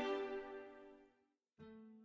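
Closing background music: a held chord fades out about a second in, then a single note sounds near the end and dies away.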